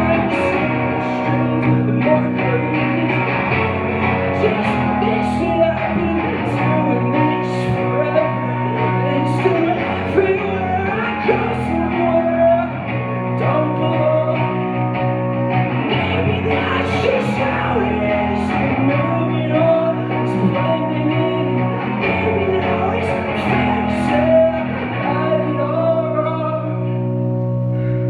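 Live rock band playing loudly: electric guitars holding sustained chords over bass and drums, with cymbal hits throughout, in a room that rings.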